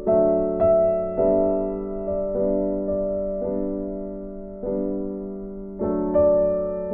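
Background music: slow, soft piano chords, each struck and left to fade, with a new chord about every second.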